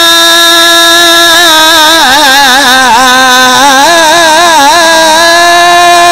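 A man's voice holding one long chanted note of a sermon. It is steady at first, wavers in quick ornamented turns through the middle, and is steady again near the end.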